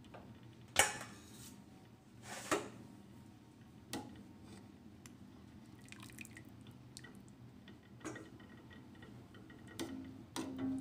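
Chicken thighs lifted out of ginger stock in a stainless steel pot with a slotted spoon: water splashing and dripping back into the pot, with several sharp knocks of the spoon, the strongest about a second in.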